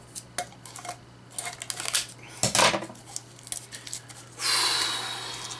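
Small metal blind-box canister being handled: clicks and clinks as the tin is turned in the hands, with a louder clatter about two and a half seconds in. Near the end comes a longer scraping, tearing sound as the canister's plastic seal is pulled at.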